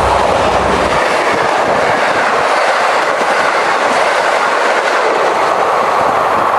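Diesel locomotive-hauled passenger train passing close by. About a second in, the low hum of the N class diesel-electric locomotive fades. The loud, steady rush of the carriages' wheels rolling on the rails follows.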